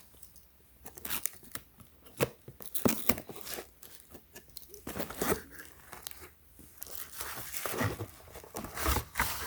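A smashed cardboard box and its packaging being opened by hand: irregular tearing, crinkling and crunching with scattered small clicks.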